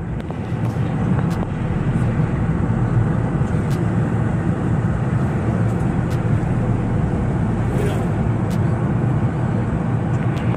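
A car on the move: steady engine and road rumble with tyre noise, swelling in over the first second, with a few faint ticks and knocks.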